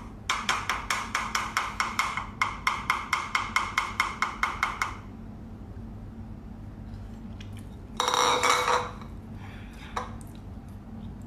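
Wooden spoon clacking rapidly against a ceramic bowl, about five strikes a second for roughly five seconds. About eight seconds in there is a louder burst of noise lasting about a second.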